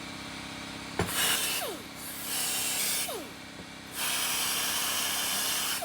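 A power grinder running steadily, with three bursts of harsh scratching noise as it is pressed against the steel of a vise to clean off rust, the last burst about two seconds long.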